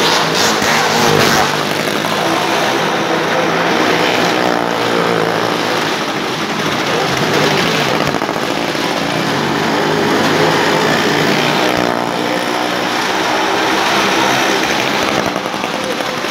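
Motorcycle engine running hard as it circles the wall of a wooden well-of-death drum. The sound swells and bends in pitch each time the bike comes round, about every three to four seconds.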